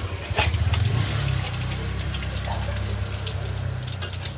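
Engine coolant trickling and running out of the engine block as the worn water pump is unbolted, over a steady low hum.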